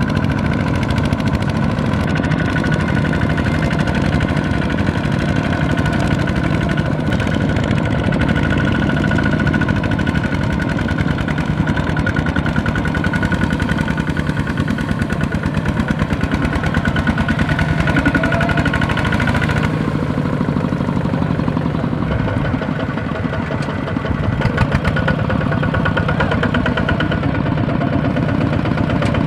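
Tractor's diesel engine running continuously at a steady pitch, dipping slightly in level about three-quarters of the way through, with a few sharp clicks just after.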